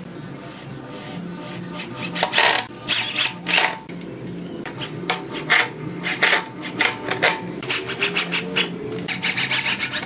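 Corded electric drill running in repeated short bursts as its twist bit bores pilot holes into pallet wood through a steel caster plate, with rasping scrapes as the bit cuts.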